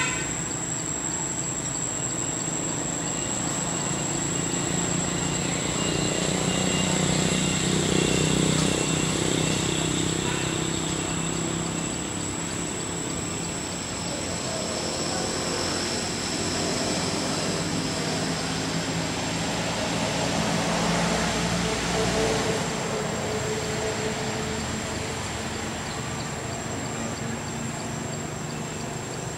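Forest ambience: a steady high-pitched insect drone over a low rumble that swells about seven seconds in and again around twenty seconds.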